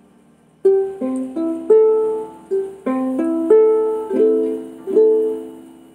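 Freshly tuned Carlton ukulele fingerpicked, a slow run of single plucked notes, two or three a second, each ringing on, starting about half a second in and fading near the end. The strings sound in tune.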